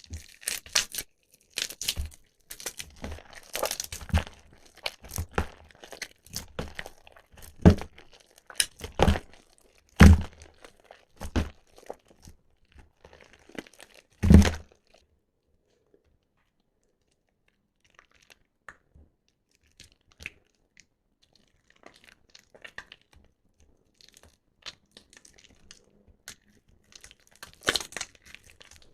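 Soaked, mushy bar soap squeezed and crushed by hand, with dense wet crackling and several heavy squishes in the first half. Then it goes mostly quiet with only faint small crackles, until another squeeze near the end.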